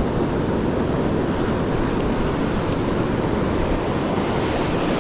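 Sea surf breaking on the shore: a steady, even rush of waves with no separate sounds standing out.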